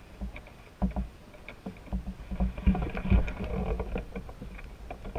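Handling noise from a handheld action camera carried by a man walking on grass: irregular low thumps and knocks, with rubbing, busiest and loudest between about two and three and a half seconds in.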